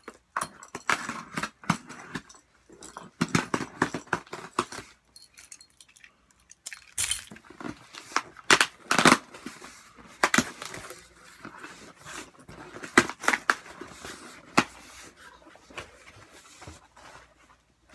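Cardboard shipping box handled and torn open by hand: a run of sharp knocks, scrapes and short rips of cardboard and tape, loudest about halfway through.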